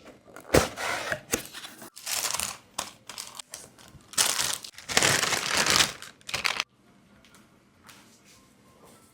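Plastic packaging crinkling and tearing in several bursts as it is handled and opened. The rustling stops about two-thirds of the way through, leaving only faint sounds.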